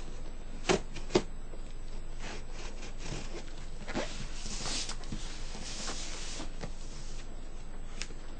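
Packing tape on a cardboard shipping box being cut open with a knife: two sharp knocks about a second in, then a few seconds of rasping, scraping tape and cardboard noise.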